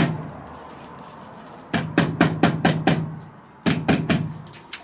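Rubber mallet tapping a round metal chimney pipe down onto its adapter to seat it in the groove: a quick run of about six blows, a short pause, then four more.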